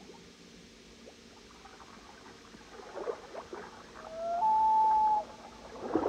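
Water splashing and dripping as a moose raises its head out of a pond, with two bursts about three seconds apart. In between comes the loudest sound: a clear, whistle-like call that rises, then steps up to a higher note held for about a second.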